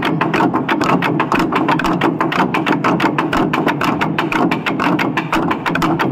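Traditional long drums being beaten in a fast, even rhythm, several strikes a second.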